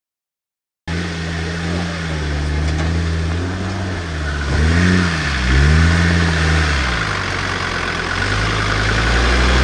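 Land Rover Discovery 2's Td5 turbodiesel engine labouring as it pulls the vehicle slowly up a cross-axled climb. The sound starts about a second in, the revs rise and fall twice about halfway through, then hold steady.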